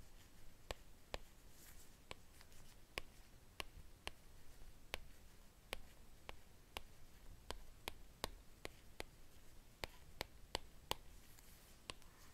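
Apple Pencil tip tapping and sliding on an iPad Pro's glass screen during handwriting: light, irregular clicks about two a second as strokes begin and end, with a soft rustle near the end.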